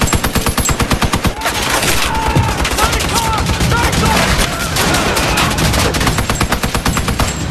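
Machine gun firing long, rapid automatic bursts, roughly ten shots a second, as a film sound effect.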